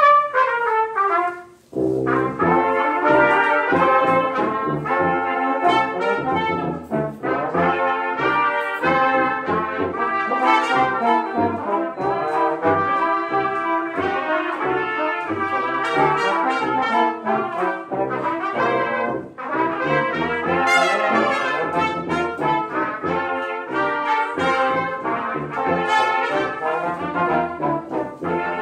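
Brass quintet of trumpets, French horn, trombone and tuba playing. It starts with a loud note that slides down in pitch, breaks off briefly just before two seconds in, then the full ensemble plays on.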